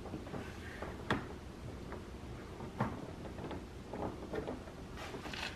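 Painted aftermarket side skirt being handled and held against a car's lower door panel, giving a few light knocks and a short scrape near the end.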